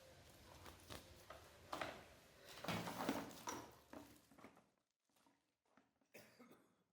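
Faint handling noise of unboxed parts and packaging: soft rustles, clicks and light taps, busiest in the first few seconds and thinning out near the end.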